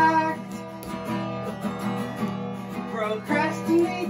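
Acoustic guitar strumming chords in an instrumental gap between sung lines of a song.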